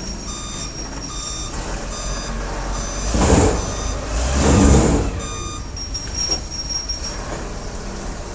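A vehicle's reversing alarm beeping repeatedly over a running engine. Two loud rushing noises swell up in the middle, about three and four and a half seconds in.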